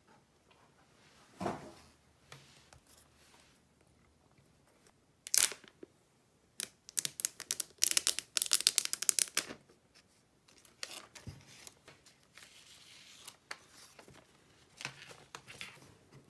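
Clear plastic shrink wrap being torn and peeled off an iPhone 12 Pro box: a rapid run of crackling rips starting about six and a half seconds in and lasting about three seconds, preceded by a single knock. Fainter crinkling of the loose film follows.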